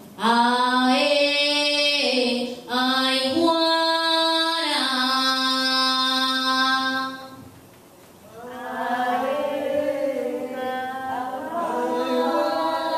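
One unaccompanied voice singing a slow song in long, drawn-out held notes that step up and down. The voice breaks off briefly about halfway through, then comes back.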